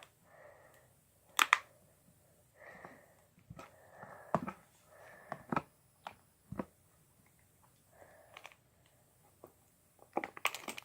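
Freshly made slime and its plastic bottle being handled: scattered sharp clicks and taps among soft squishing and rustling.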